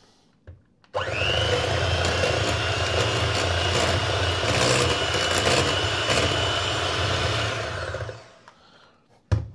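Electric hand mixer switching on about a second in, its twin beaters whisking cream in a glass bowl with a steady motor whine and hum. It runs for about seven seconds, then winds down, and a short knock follows near the end.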